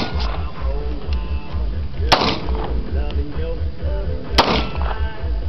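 Two pistol shots from a semi-automatic handgun, about two seconds apart, each a sharp crack with a short echoing tail. Music with a pulsing bass beat plays underneath.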